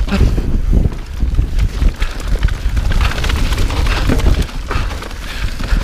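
Mountain bike riding down a rough dirt trail: tyres on dirt and rock, with the bike clattering and knocking over bumps and a steady rumble of wind on the microphone.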